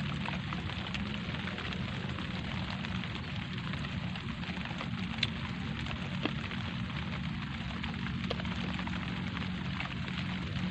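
Light rain falling steadily on leaves and a wet concrete ledge: a dense patter of drops, with a couple of louder single drops about halfway through.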